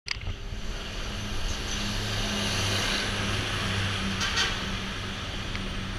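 A car's engine running with a steady low hum as it drives along a city street amid traffic noise, with a short hiss about four seconds in.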